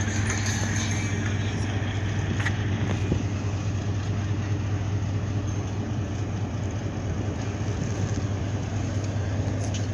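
Steady low engine drone over a broad, even background noise.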